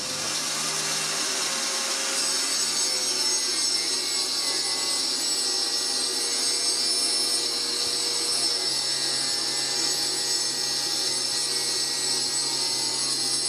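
An angle-grinder-type disc cutter running steadily as it mills a spiral flute along a turned beech spindle, the disc cutting wood with an even, high, hissing noise and a steady motor hum beneath it.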